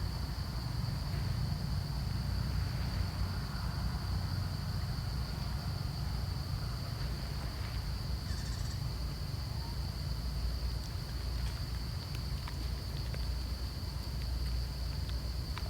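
Outdoor ambience: a steady high-pitched insect drone over a low wind rumble, with a brief chirp about halfway through.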